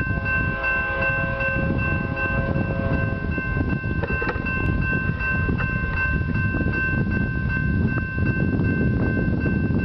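Railroad grade-crossing bell ringing steadily as the crossing activates, over a low rumbling noise. Fainter lower tones fade out about three seconds in.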